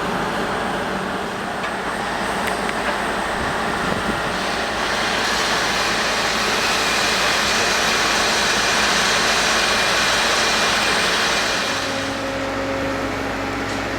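Heavy foundation drilling rig working, its diesel engine and machinery making a steady, loud rushing noise. The noise swells for several seconds in the middle, then about twelve seconds in it drops back to a steadier engine hum.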